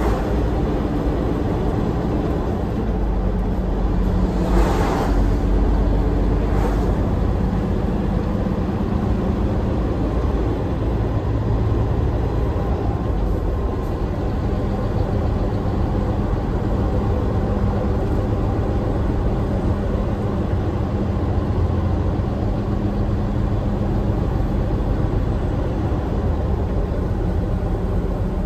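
Hino Profia tractor unit's diesel engine running under way, heard inside the cab with steady road noise. A brief rush of noise comes about five seconds in, with a fainter one shortly after.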